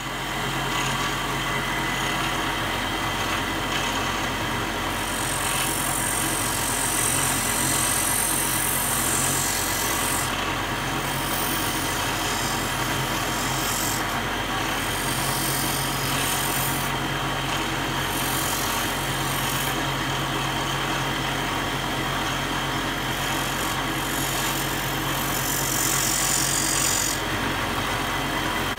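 Lapidary grinding machine running steadily, its electric motor and belt-driven wheels giving a constant hum, as an opal is ground on the wet wheel. A brighter hiss comes and goes several times over the hum.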